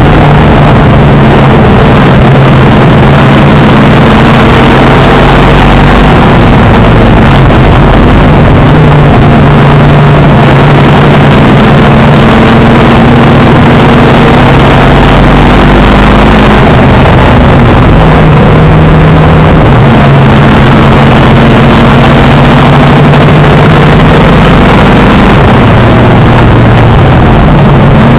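Stock car engine running hard under racing load, heard loud from inside the car, its note rising and falling several times, with the other cars' engines close around it.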